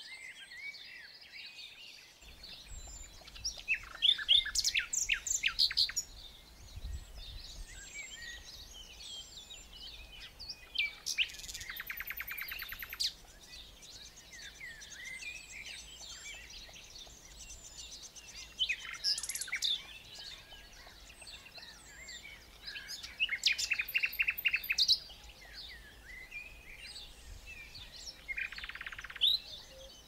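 Several songbirds singing together, a busy mix of chirps and whistles, with loud rapid trilled song phrases breaking in every few seconds.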